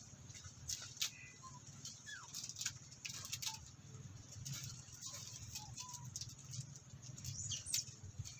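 Faint outdoor ambience: several brief high chirps that glide up or down, scattered light clicks and rustles, over a low steady hum.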